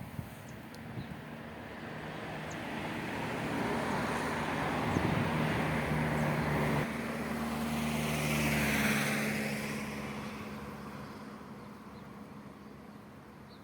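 A motor vehicle passing by: its engine hum and tyre rush build slowly, are loudest about eight or nine seconds in, then fade away.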